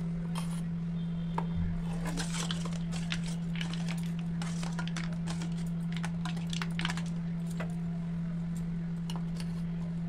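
A steel spoon scraping mint paste from a steel bowl, then stirring it into iced water in a steel pot, with frequent light clinks of spoon and ice cubes against the metal. A steady low hum sits underneath.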